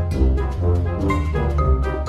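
Instrumental background music with a strong bass line, its notes changing several times a second.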